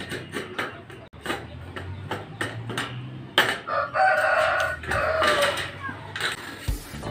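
A rooster crows once, a long call about four seconds in. Around it come sharp clinks and taps of sheet-metal studs being handled and knocked, the loudest knock just before the crow.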